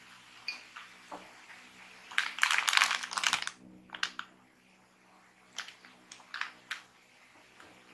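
Plastic snack bag crinkling as it is handled, in a dense crackle lasting about a second near the middle, followed by a few light clicks and taps.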